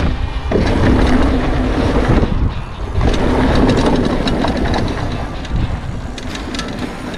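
Canyon Stoic 2 hardtail mountain bike riding a dirt jump line: tyres rolling on dirt, with heavy wind rumble on the microphone.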